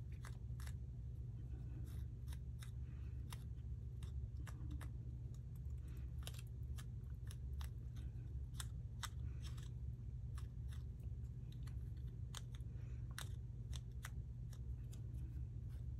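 Paper being worked by hand during crafting: irregular small scratchy clicks and rubs, scattered throughout, over a steady low hum.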